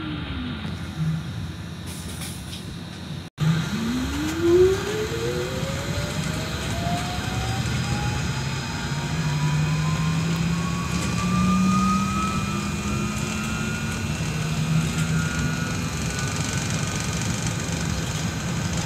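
Solaris Trolino 12 trolleybus's electric traction drive whining as it pulls away: after a brief drop-out about three seconds in, a whine rises steadily in pitch for about ten seconds over a low hum and road noise inside the cabin.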